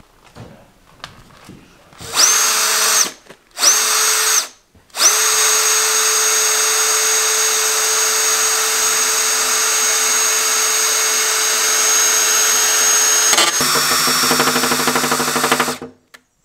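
Cordless drill boring a hole into the sheet-metal front wing of a VW T6 van, through a paper drilling template. Two short starts are followed by a steady high whine for about ten seconds. Near the end the whine drops a little in pitch and turns rough under load, then stops.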